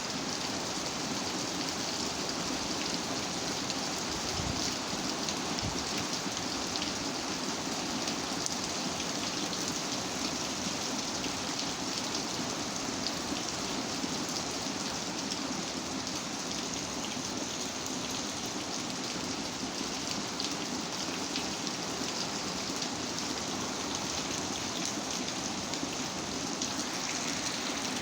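Steady rain falling, a continuous hiss of water with many individual drops ticking through it.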